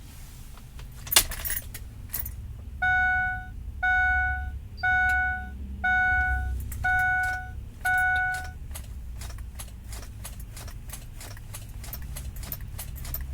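Keys jangling with a sharp click about a second in, then six evenly spaced electronic warning chimes from the pickup's dashboard, about one a second. A fast, steady run of clicks follows, over a low hum.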